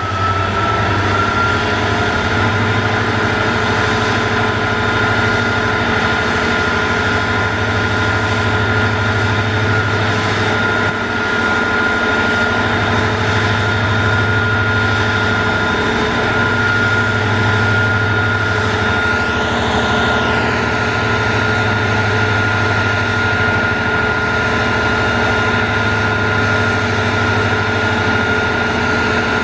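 Twin EMD WDG4 (GT46MAC) diesel locomotives running hard at high notch, their 16-cylinder two-stroke engines throbbing under a steady turbocharger whine that rises a little at first and then holds. The low drone swells and fades every two to three seconds as the two engines beat against each other. The locomotives are working to start a loaded freight train on an up gradient.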